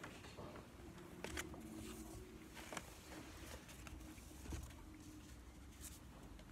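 Quiet church room tone with a few faint, scattered clicks and light knocks of vessels and objects being handled on an altar.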